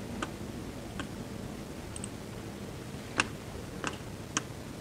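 About six separate sharp clicks from a computer being worked, mouse and keys, the loudest a little after three seconds in, over a steady low hum.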